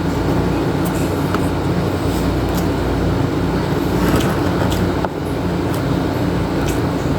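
Steady low mechanical hum of room machinery, with a few faint clicks of someone eating with their hands and chewing.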